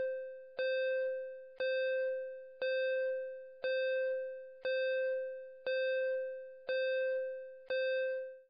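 Countdown timer sound effect: a bell-like ding struck about once a second, each one ringing and fading before the next, counting down the seconds. The last ding is cut short near the end.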